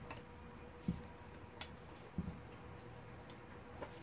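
A few faint, sharp clicks and taps of metal parts being handled as the already-loosened cap is worked off a motocross fork leg at the bench.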